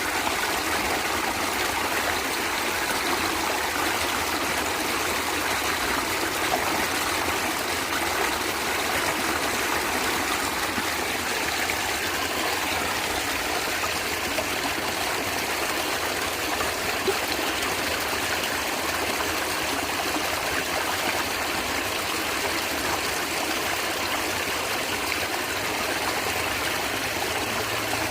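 Natural stream water running and gurgling steadily over stones, a constant even rush with no pauses.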